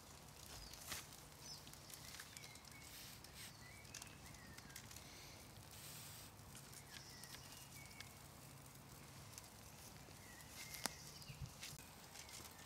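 Quiet woodland ambience: faint birdsong, short chirps every second or two, over a low steady hum that fades out near the end, with a few small clicks.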